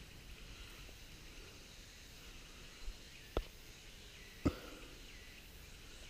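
Faint forest ambience with a steady high hiss, broken by a few soft knocks of footsteps on the trail, the clearest about three and a half and four and a half seconds in.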